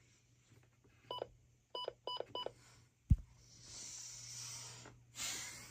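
Four short electronic beeps, one and then three in quick succession, followed about three seconds in by a single sharp thump, the loudest sound, then a soft hiss and a brief breathy noise near the end, over a faint steady low hum.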